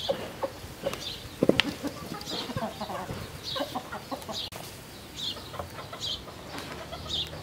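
Chickens clucking and a small bird chirping again and again, with a sharp knock about one and a half seconds in.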